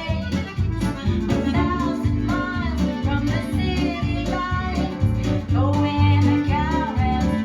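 Recorded folk music with guitar, bass and a bending melodic line, played back through a hi-fi amplifier and loudspeakers.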